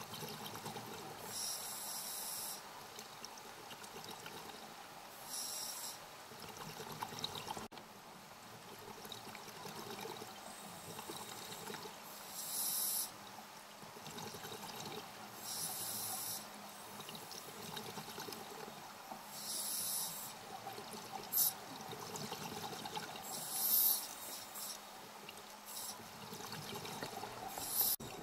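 Scuba regulator breathing underwater: bursts of exhaled bubbles gurgling about every few seconds, with a quieter steady background between them.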